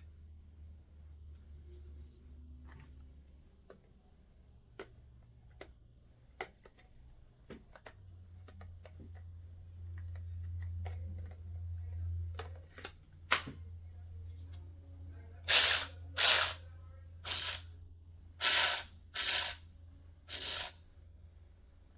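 Scattered light clicks and knocks as the JAVN cordless ratchet is handled, then the ratchet running in six short bursts of about half a second each as its trigger is pulled again and again.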